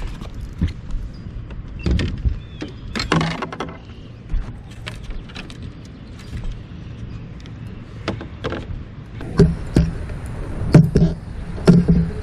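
Scattered knocks and thumps on a bass boat's deck as an angler shifts his feet and handles a landing net while landing a fish. The loudest bangs come in the last three seconds, over a low wind rumble.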